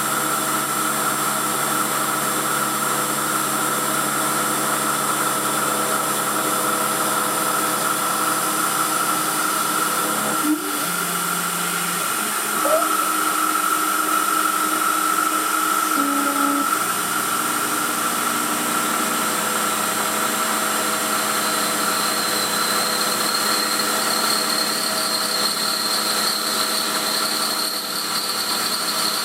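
Emco F1 CNC milling machine running, its spindle and axis drive motors giving a steady whine as a 6 mm ball-nose cutter mills a cast aluminium engine pan. The pitch pattern shifts about a third of the way through and again just past halfway as the axes change moves, and a higher whine rises gently near the end.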